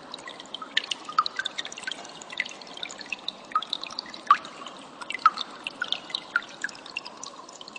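Cililin bird calling in quick, irregular, sharp high chips, several a second, over a steady hiss like trickling water.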